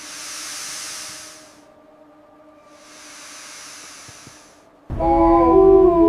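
Two gusts of wind swell and fade over a faint low music drone. About five seconds in, a pack of wolves starts howling loudly, several wavering voices overlapping.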